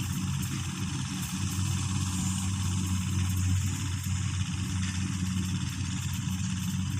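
Combine harvester's diesel engine running steadily with a constant low hum, along with a spread of machinery noise.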